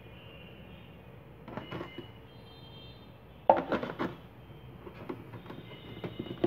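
Cardboard box and packaging of a mesh Wi-Fi router kit being handled: a few soft rustling clicks, then a louder clatter of knocks and scrapes about three and a half seconds in.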